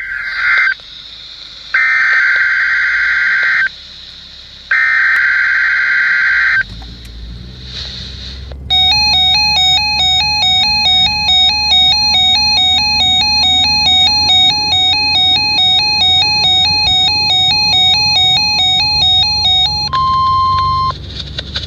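NOAA Weather Radio Emergency Alert System test: three short, harsh, buzzing bursts of SAME digital header data. Then comes an electronic alert tone that alternates rapidly between pitches for about eleven seconds, ending in roughly a second of steady single tone.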